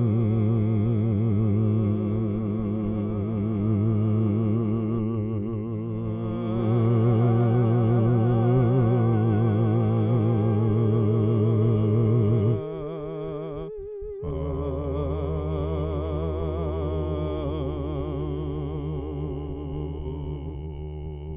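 Dark ambient end-credits music: sustained, slowly wavering tones over a low drone, shifting suddenly to a lower drone about halfway through and fading near the end.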